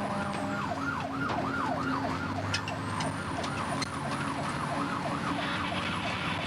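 A fire rescue truck's siren yelping, sweeping rapidly up and down about three times a second over the truck's engine rumble. Its air-powered train horn sounds a steady chord that cuts off about half a second in.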